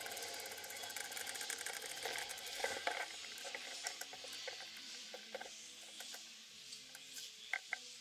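Bicycle rear-hub freewheel ticking rapidly as the bike coasts, over tyre and road hiss. About three seconds in the hiss fades and the ticking thins out as the bike slows to a stop, leaving a few scattered clicks.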